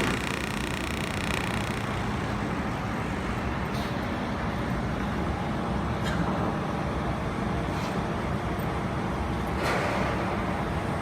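Steady hum of a laser welding machine and its cooling running, with a few faint clicks scattered through it.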